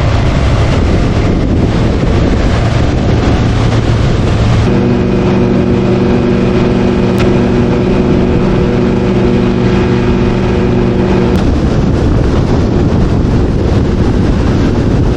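Boat motor running under loud, steady wind buffeting the microphone. A steady hum of several tones stands out of the noise about five seconds in and stops about six seconds later.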